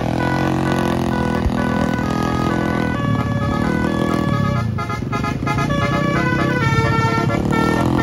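A bus's Basuri 'telolet' musical air horn playing a tune in quick stepped notes, with vehicle engines running underneath.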